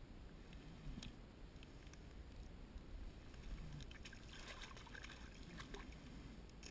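Hooked fish splashing at the water's surface as it is brought alongside to be landed, in a burst starting about four seconds in, with a few faint clicks before it.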